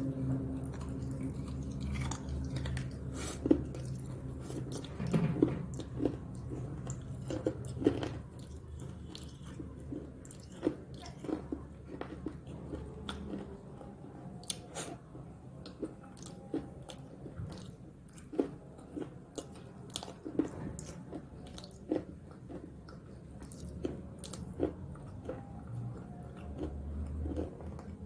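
A person biting and chewing crunchy snack sticks close to the microphone: irregular sharp crunches and chewing, over a low steady hum that fades out about halfway through and returns near the end.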